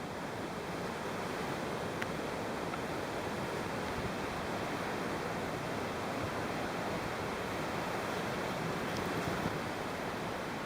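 Steady rush of the Athabasca River's water running on beneath the ice of the frozen falls.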